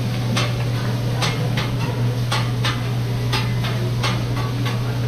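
Metal utensils tapping and clinking on a cooking surface, sharp irregular clicks about two a second, over a steady low hum.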